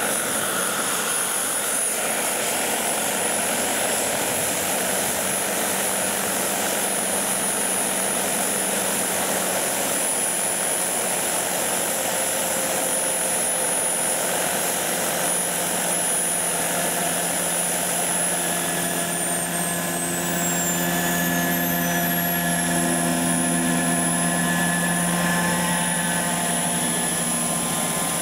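Radio-controlled scale model helicopter flying, with a steady hum of rotor and motor under a high whine. The whine glides down in pitch about two-thirds of the way through, and the hum grows a little louder near the end.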